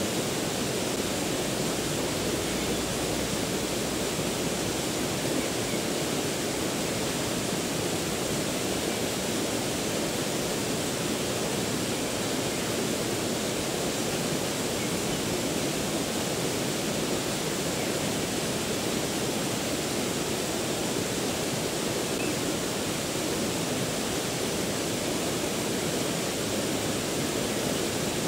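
Mountain river running, a steady even rush of water.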